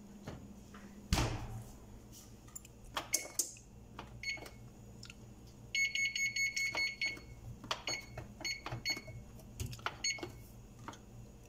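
The oven door of a GE electric range shuts with a thump about a second in. Then comes a series of short high beeps from the range's control panel as its buttons are pressed, with a quick run of rapid beeps about halfway through.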